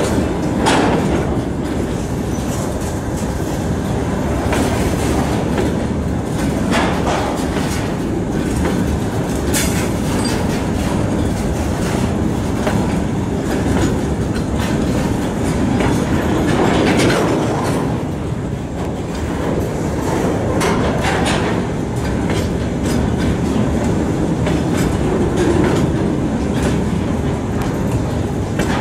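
Freight train of open-top gondola wagons rolling past, steel wheels clacking over rail joints over a continuous rumble.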